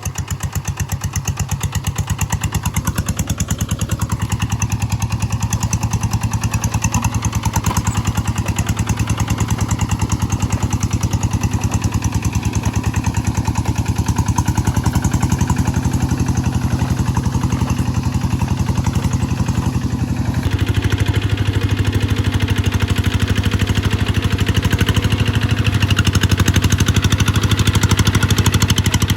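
G1000 engine running steadily on test, with a rapid, even beat of firing pulses. About 20 seconds in, its tone shifts and then holds steady again.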